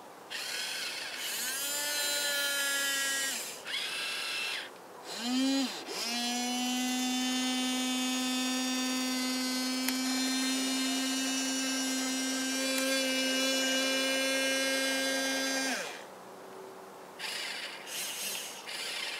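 Small electric gear motors of an RC toy excavator whining as its upper body and boom move. There are several short runs, each starting with a quick rise in pitch, and one steady run of about ten seconds that drops in pitch as it stops.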